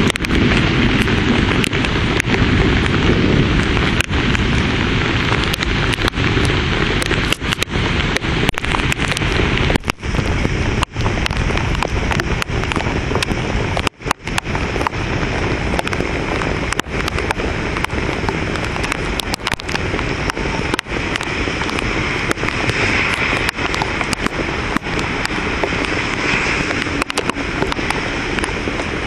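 Thunderstorm rain and gusting wind on the microphone, a loud steady rush. The low buffeting is strongest in the first few seconds.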